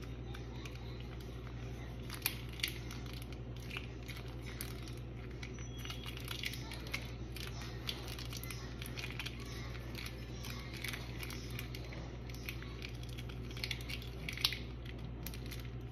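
Syrup-soaked chocolate chip pancakes being pulled apart and lifted by hand: soft sticky squishing and tearing with scattered small clicks and crackles, over a steady low hum.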